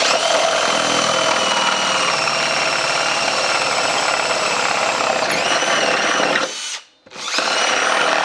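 Cordless drill running under load as it drills out a bolt hole in a truck's rocker sheet metal, enlarging an undersized, uneven factory hole. One long run of about six and a half seconds, with the pitch sagging briefly near its end, then a short stop and the drill starts again.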